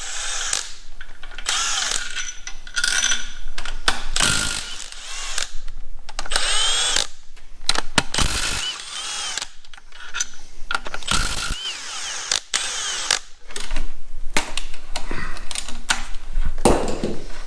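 Cordless impact driver run in repeated short bursts, its motor whining up and down as it spins out bolts from the aluminium main-bearing cradle of a Volvo T6 straight-six engine block.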